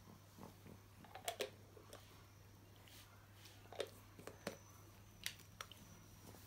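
Faint plastic clicks and taps, about half a dozen spread over several seconds, as a baby bottle's cap is handled and fitted back onto the bottle, over a steady low hum.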